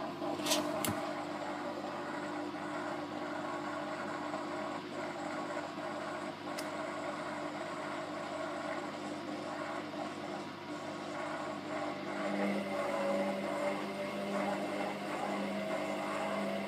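Candy GO DF800 washing machine spinning a towel with its door open, a steady motor hum with a couple of sharp clicks near the start; about three quarters of the way in the tone changes and a slow rising whine sets in as the drum speeds up. The load is too unbalanced for the machine to reach its full 1400 rpm spin.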